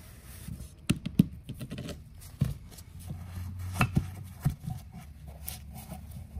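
Scattered clicks and knocks of a screwdriver and a pried-out oil seal being handled and set down on a cardboard-covered workbench, with a rag rubbing over the gearbox cover.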